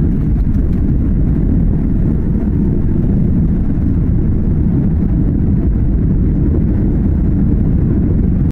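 Boeing 737-800's CFM56 jet engines at takeoff thrust, a steady low rumble.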